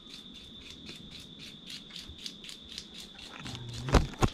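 Rhythmic outdoor chirping from a calling animal, about five pulses a second over a steady high tone. Two loud thumps come near the end.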